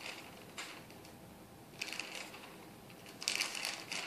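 Faint rustling handling noise in a few short bursts, the longest and loudest near the end.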